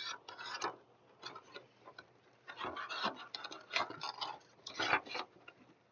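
Hands handling unboxed items and their packaging: irregular clicks, taps and rustles. This fits a book being slid back into its packaging.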